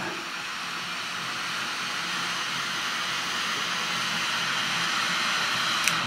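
Windproof jet lighter's flame burning with a steady hiss that grows slightly louder and cuts off near the end. It is heating a solder-seal heat-shrink butt connector to melt the solder ring inside.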